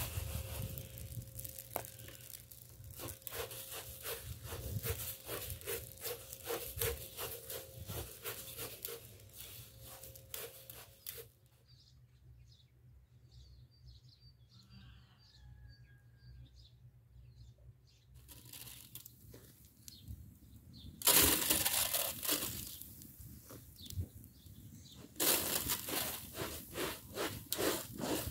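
A cloth rubbing a large aluminium tray in quick, even strokes. After a quieter stretch, rice grains are stirred and scraped around the tray with a cloth; this grainy scraping is the loudest part and comes in two spells near the end.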